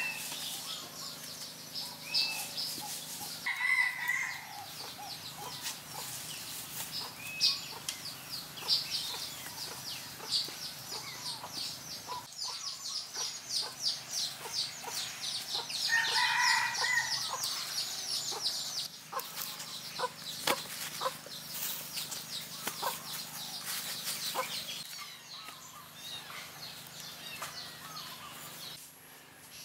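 Chickens clucking, with short rooster-like calls about four seconds in and again past the middle, over a rapid, high-pitched chirping trill. Light scattered clicks and rustles follow in the second half.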